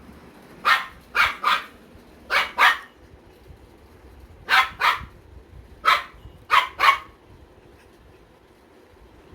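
German Shepherd puppy barking: about ten short, high barks, most in quick pairs, stopping about seven seconds in.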